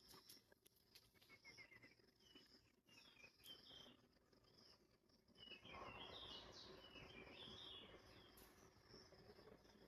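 Faint birdsong: short repeated chirps and twitters, louder for a couple of seconds from about halfway through, over a soft steady hiss.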